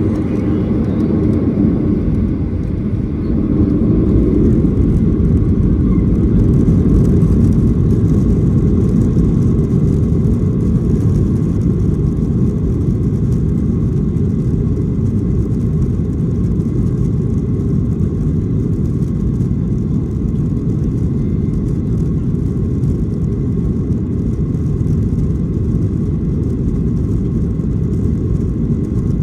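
Boeing 737-800 jet engine and cabin noise heard from on board: a loud, steady rumble that swells a little about three and a half seconds in.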